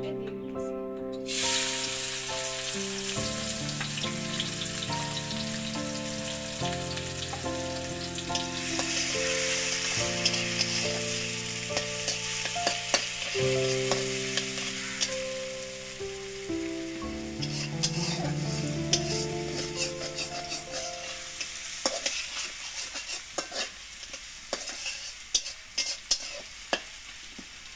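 Sliced onions dropped into hot oil in a wok about a second in, setting off a loud sizzle that goes on as they fry. A spatula scrapes and taps against the wok, the taps clearer near the end.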